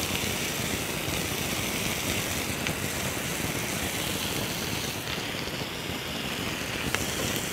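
Marinated chicken pieces sizzling steadily on a hot ridged grill pan, with an occasional faint tick of spitting fat.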